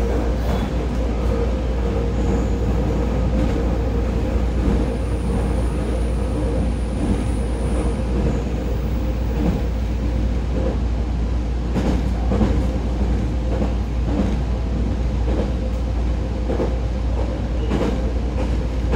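JR Kyushu 819 series DENCHA battery-electric train running at steady speed, heard from on board: a steady rumble of wheels on rail under a steady hum, with a few clicks from the track.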